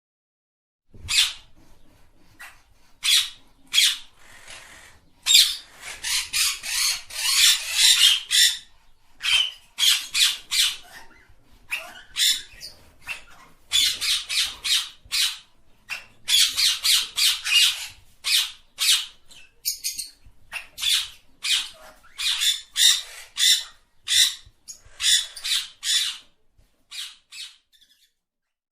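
A parrot squawking and chirping: runs of short, rapid, high calls with brief pauses between them, starting about a second in and thinning out near the end.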